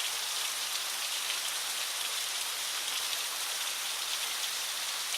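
Small woodland waterfall running, a steady hiss of falling and splashing water; the flow is low, well short of full flow.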